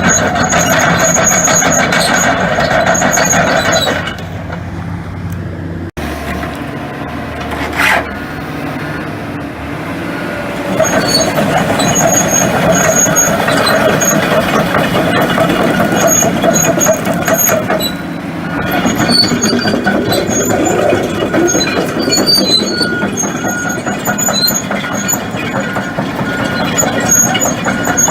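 Hitachi ZX450LC hydraulic excavator travelling on its tracks in high track speed: diesel engine running under load with squealing and clanking from the tracks. It eases off for a few seconds about four seconds in, with a sharp clank near eight seconds, then picks up again.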